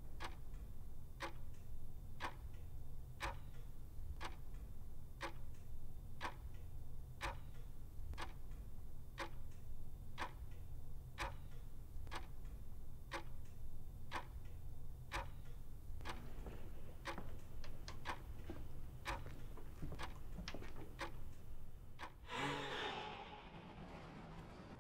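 Pendulum wall clock ticking about once a second over a low steady hum. About two-thirds of the way in the ticks come quicker and less evenly, and near the end a short rushing noise swells and fades.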